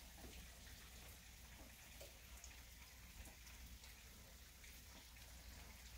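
Very faint rain, with scattered soft drip ticks.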